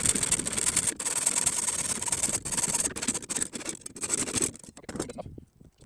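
Steady scraping of a hand tool working metal, in long strokes broken by a few brief pauses, dying away near the end.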